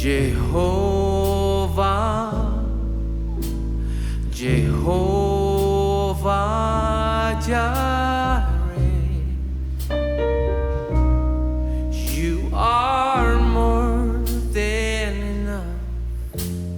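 A small band playing a gospel-jazz song: a deep double bass line and piano under a lead melody that bends in pitch, phrase by phrase, with occasional drum and cymbal hits.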